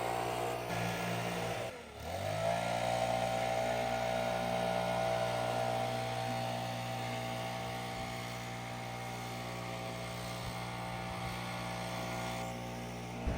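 A vehicle engine running steadily. About two seconds in, its pitch drops sharply, then climbs back and holds steady, as when the vehicle shifts and pulls away.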